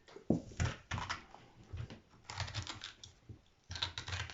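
Spoon scraping and gouging out the hard flesh from the middle of a raw black radish: a run of irregular short scrapes and clicks.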